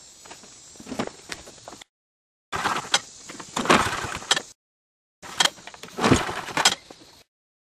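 Briggs & Stratton lawn mower engine being pull-started on a cold start after sitting for months: three pulls of the recoil starter rope, each a rough rattling whir of about two seconds, broken by abrupt dead-silent gaps. The engine does not settle into a steady run.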